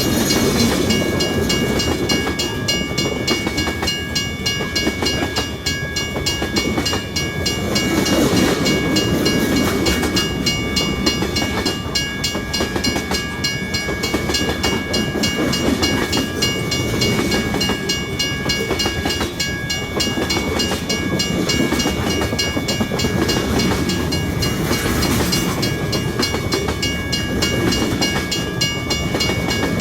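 Long freight train passing, its wagons rumbling and clattering steadily over the rails, with several steady high-pitched tones ringing throughout and the rumble swelling and easing as cars go by.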